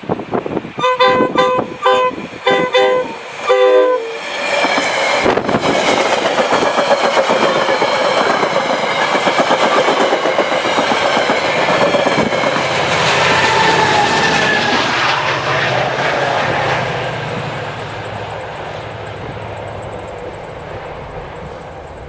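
Metra commuter train sounding its horn in a series of short blasts, then rushing past with the MP36 diesel locomotive pushing at the rear. The passing noise is loudest about thirteen seconds in and fades away near the end.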